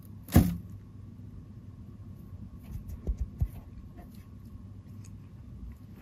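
A sharp knock about half a second in, then a few softer knocks around three seconds in, over a steady low hum.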